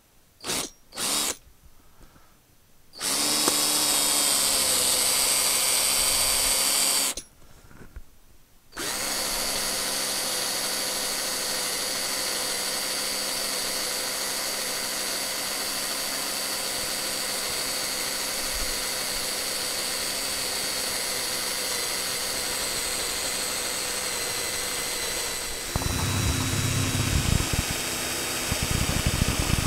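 Makita cordless drill boring into a rust-seized steel parallel pin on a tractor PTO lever, drilled because the pin will not punch out. Two quick trigger blips, a run of about four seconds, a short pause, then a long steady run; near the end the sound turns rougher and rattling.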